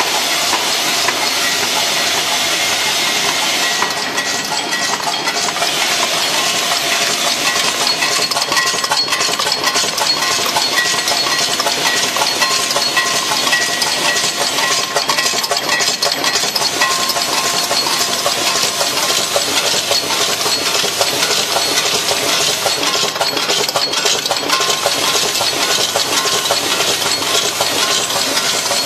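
Automatic screw counting and packing machine running: a steady, dense metallic rattle of screws being fed and dropped, with a hiss over it.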